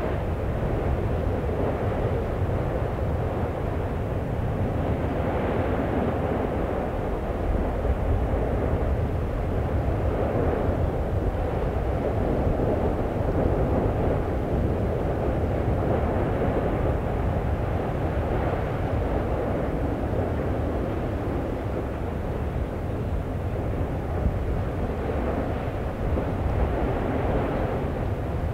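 Steady, deep rumbling roar of an erupting volcano, an even, unpitched noise that stays much the same throughout.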